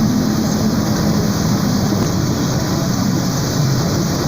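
A small truck's engine running steadily while the truck descends a mountain road, heard from inside the cab as a continuous low rumble.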